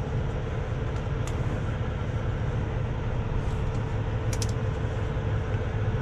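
A heavy diesel truck engine running steadily with a low, even drone, with a couple of faint light clicks over it.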